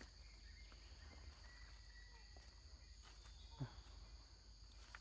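Faint, steady high-pitched drone of insects, with one brief sound about three and a half seconds in.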